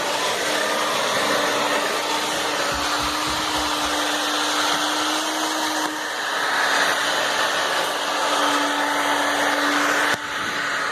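Hair dryer running steadily with a constant hum, blowing hot air on a dried-out refrigerator door gasket to soften it. The level dips briefly near the end.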